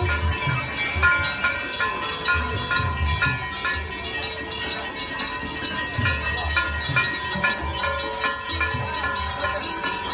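Temple bells ringing in a quick, steady rhythm during a Hindu evening aarti, with a deep beat under them.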